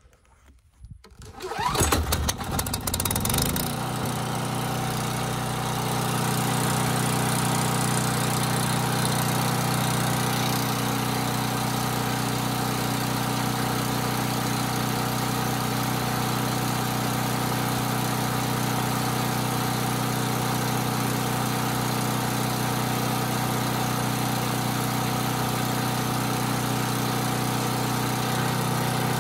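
Briggs & Stratton engine of a Power Boss portable generator starting about a second and a half in, surging briefly, then settling into a steady, loud run. Its exhaust passes through the stock muffler into an added car muffler, with a hole in the exhaust held shut by a block of wood.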